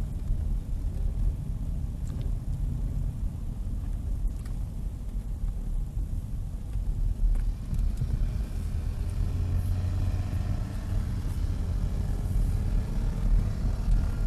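Car in motion heard from inside the cabin: a steady low rumble of engine and tyres on the road, with a stronger low hum coming in about halfway through.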